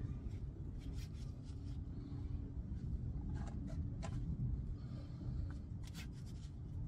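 A shop rag and hand rubbing and scraping on a steering tie rod end and rack boot, a few short faint scratchy rubs, over a steady low rumble.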